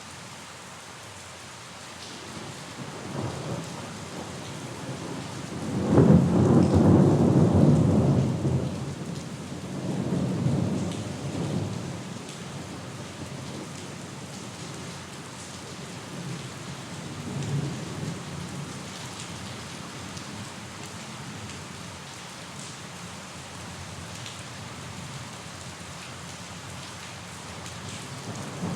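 Steady rain falling, with thunder: a sudden loud low rumble about six seconds in that fades over a few seconds, weaker rumbles after it, and another beginning right at the end.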